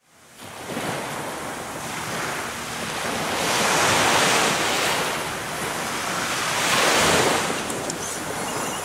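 Small surf breaking and washing up a sandy beach, with wind buffeting the microphone. The wash swells up twice, about four and seven seconds in.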